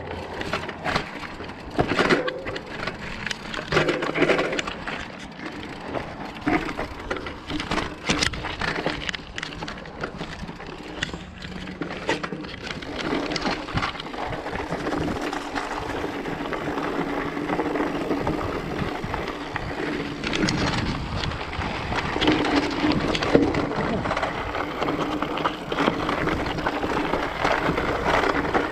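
Mountain bike rolling down a rocky, loose trail: tyres crunching over stones, with frequent knocks and rattles from the bike. The knocks are thickest in the first half, and a steadier rolling noise takes over from about the middle.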